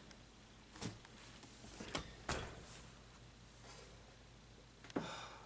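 A few faint knocks and clicks, about four spread over the few seconds, of vinyl records in their sleeves being handled and set down.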